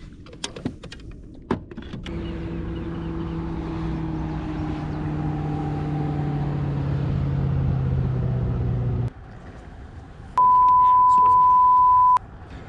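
A powerboat's engine running at speed as it passes close, its note slowly falling in pitch while it grows louder, then cutting off suddenly. About a second later a steady censor beep covers a curse for nearly two seconds.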